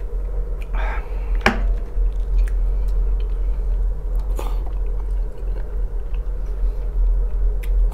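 Close-up chewing and wet mouth sounds of a person eating canned sprats in tomato sauce and noodles. There are a few sharp clicks, one at about a second and a half and one at about four and a half seconds, over a steady low hum.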